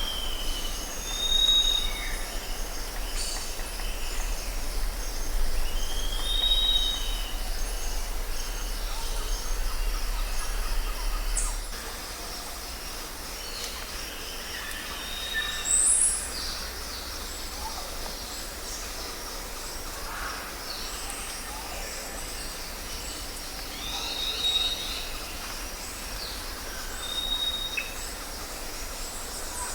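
Several birds calling and singing, with repeated short high whistles and downslurred notes. A low steady rumble underneath stops abruptly about twelve seconds in.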